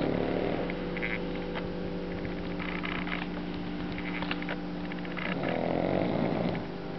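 Pekingese dog snoring in its sleep: two slow snores about five seconds apart, one right at the start and one from about five seconds in. A steady electrical hum sits underneath.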